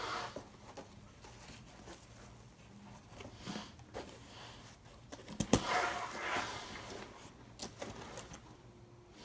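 Hands handling a laptop backpack: nylon fabric rustling and scattered small clicks, with one sharp knock a little over halfway through followed by a burst of rustling.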